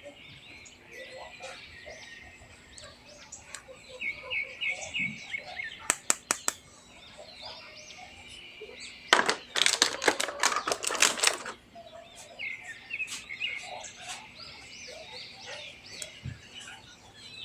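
Small birds chirping over and over in the background, with a few sharp clicks about six seconds in and a louder burst of clicking and rustling around the middle.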